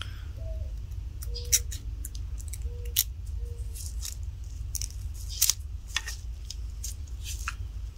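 Light metallic clicks and scrapes of a dental pick prying a gas ring off a steel AR-15 bolt, coming irregularly every second or so, over a steady low hum.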